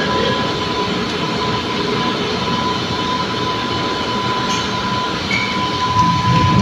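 A ferry's bow ramp being lowered: steady mechanical rumble with a constant high whine running under it, the low rumble growing heavier near the end as the ramp comes down onto the dock.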